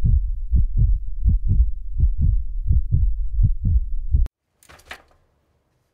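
Heartbeat sound effect: deep thumps in lub-dub pairs, about one and a half beats a second, that stop suddenly about four seconds in. A faint, brief rustle follows shortly after.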